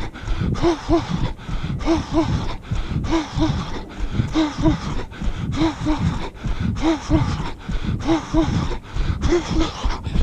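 Runner's heavy, rhythmic breathing: short voiced huffs in pairs, about once a second, over wind rumble on the body-worn microphone.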